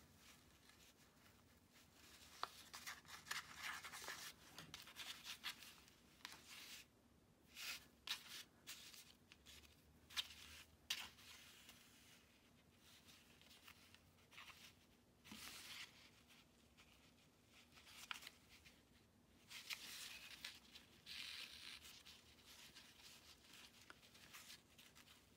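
Faint, irregular rustling and swishing as wool yarn is pulled through knitted fabric with a needle and hands brush a paper template, in several bouts separated by quiet gaps.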